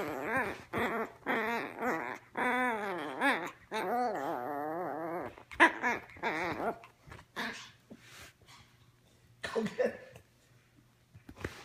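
Teacup Yorkshire terrier puppy whining and growling through a ball held in its mouth, in a run of wavering, drawn-out cries over the first seven seconds and a short one again near the end. The cries press for the ball to be thrown.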